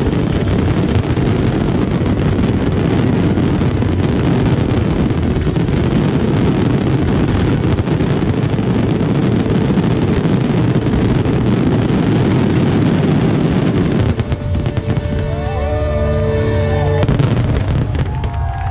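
Fireworks finale: a dense, continuous barrage of aerial shell bursts and crackling. The barrage thins out about fourteen seconds in, and steady pitched tones come in over the last scattered bursts.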